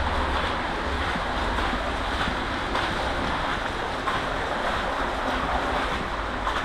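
Steady rush of flowing brook water, an even wash of noise with no distinct events.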